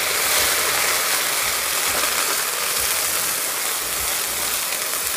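Wet onion and garam masala paste sizzling in hot oil in a kadhai, with a steady hiss as it is stirred with a wooden spatula.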